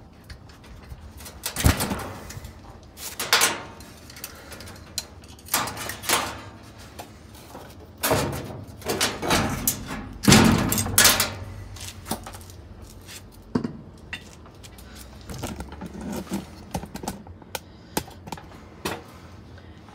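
Irregular knocks, clanks and scrapes of metal parts being handled and pulled at inside the steel cabinet of a 1974 Whirlpool belt-drive washer during dismantling, with a longer run of scraping and rattling about halfway through.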